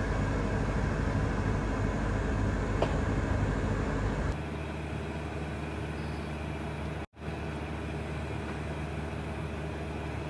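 Steady low background rumble with no clear source. It gets slightly quieter about four seconds in and cuts out for an instant about seven seconds in.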